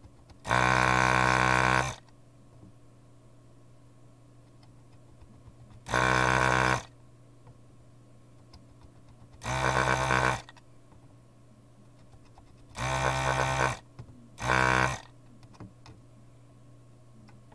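Electric vacuum desoldering gun's pump buzzing in five short bursts, each under a second and a half, as it sucks molten solder off a DIP socket's pins; the last burst is the shortest.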